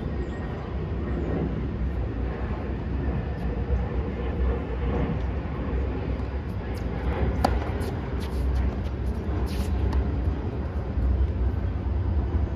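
Tennis ball struck by rackets a few times in the middle, sharp single hits, over a steady low rumble.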